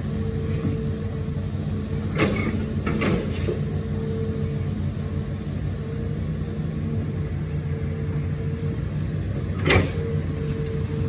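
Hitachi ZAXIS 210F amphibious excavator's diesel engine and hydraulics running steadily under digging load, with a faint steady whine. There are sharp metal clanks from the arm and bucket about two seconds in, again a second later, and near the end.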